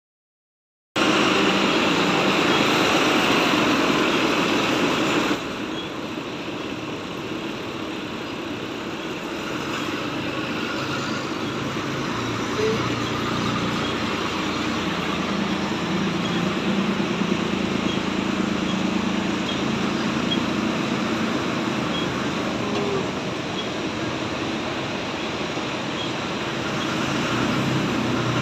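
John Deere tractor's diesel engine running as its front loader scoops and lifts cotton, the note rising and falling with the throttle. A louder, noisier stretch in the first few seconds drops off abruptly about five seconds in.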